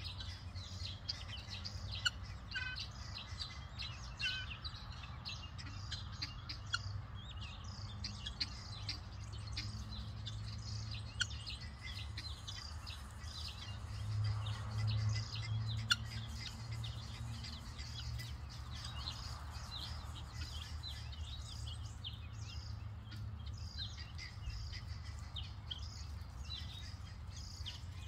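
Helmeted guineafowl keets peeping: many short, high chirps in quick succession, over a low steady hum.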